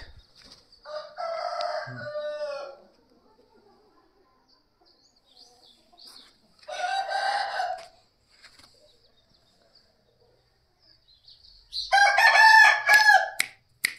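Aseel rooster crowing three times, a few seconds apart, each crow lasting one to two seconds. A few sharp clicks come at the very end.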